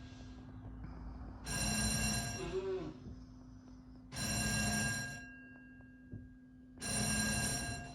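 Wall-mounted electric fire alarm bell ringing on and off: three rings of about a second each, a second and a half or so apart, plus the end of one at the start. A steady low hum runs underneath.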